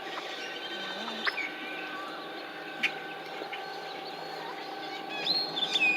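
Scattered bird chirps and calls, with a cluster of quick sweeping whistles near the end, over the steady hum of the boat's battery-electric motor.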